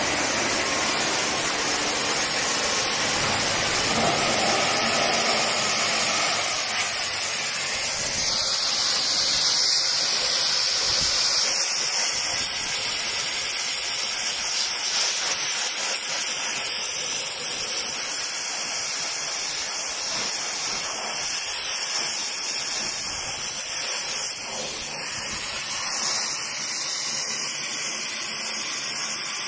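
Small lawn-tractor engine, a 12 hp Briggs & Stratton, running steadily under a loud, even hiss; its low hum fades after about eight seconds, leaving mostly the hiss.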